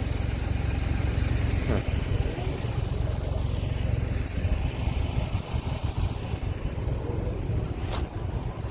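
An engine idling, a low steady rumble, with a light click about two seconds in and another near the end.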